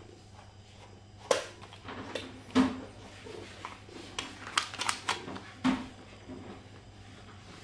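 Grooming tools being handled, giving a string of sharp clicks and taps over about four seconds, starting about a second in.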